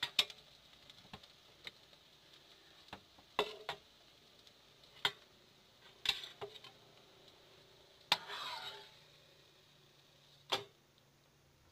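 A spoon clinking and tapping against a wok and a ceramic plate while fried food is lifted out: about ten sharp clinks at irregular spacing, with a brief scrape a little past the middle.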